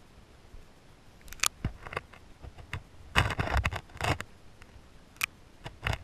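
Irregular sharp clicks and knocks underwater, with a denser crackling cluster about three to four seconds in.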